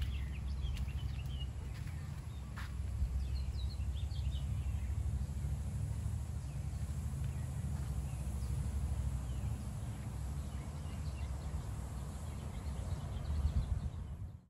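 Small birds chirping here and there over a steady low rumble of wind on the microphone, outdoors among the nursery plants. The sound cuts off abruptly at the end.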